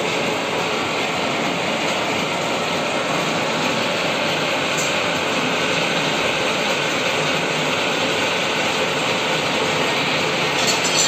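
Plano milling machine running steadily while milling a keyway in a shaft: a continuous even machine noise, with a few light metallic clicks near the end.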